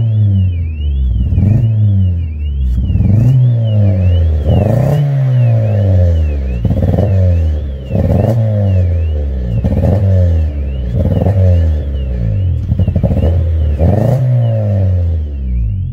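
Honda Civic engine being revved over and over, its pitch rising and falling about ten times. A quick run of pops breaks in near the end. It is the splutter and backfire of an engine that is misfiring and won't rev cleanly. A warbling, alarm-like tone goes on behind it throughout.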